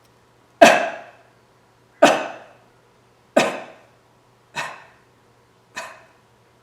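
Qigong kidney healing sound voiced five times: short, sharp, breathy vocal bursts, each one sudden and quickly fading. They come about one every second and a half and get quieter each time.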